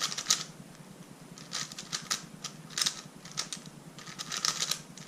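Qiyi Galaxy V2 M magnetic megaminx being turned by hand: its plastic faces click and clack in short bursts of a few turns, with brief pauses between.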